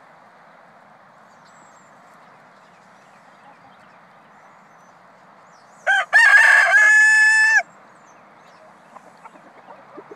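A rooster crows once about six seconds in: a short opening note, then a long held note lasting about a second and a half.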